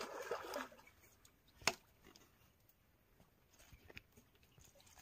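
Brief splashing of river water in the first second, then a single sharp click about a second later, with faint ticks after.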